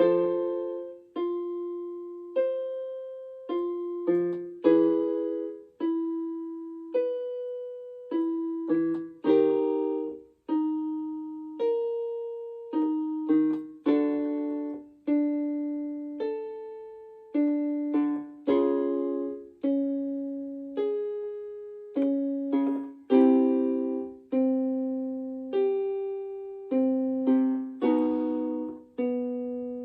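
Piano playing a slow run of chords, one struck about every second and left to fade, as the backing for a vocal exercise.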